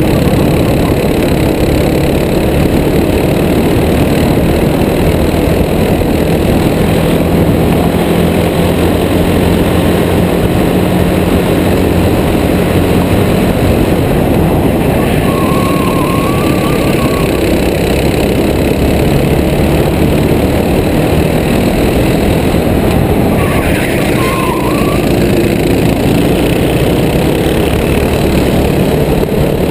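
Racing go-kart engine running hard through a race lap, heard from the driver's helmet camera, mixed with a steady rush of wind. Its pitch rises and falls a little with the throttle, and a short high wavering squeal comes twice in the second half.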